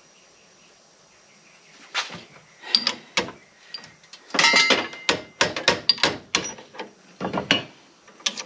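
Metal tools and parts being handled: a run of sharp clinks and knocks, some ringing briefly, starting about two seconds in.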